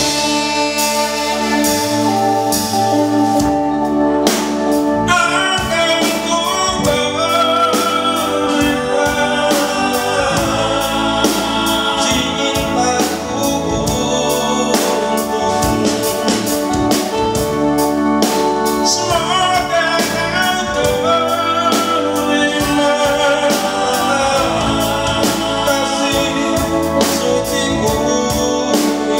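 Live band playing a song, with drum kit, electric guitar, bass guitar, keyboard and saxophones behind a male lead singer; the vocal line comes in about five seconds in.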